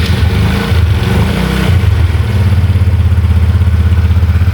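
Honda Biz 125's carbureted single-cylinder four-stroke engine running just after an electric start, a little faster for about the first second and a half, then settling into a steady, evenly pulsing idle.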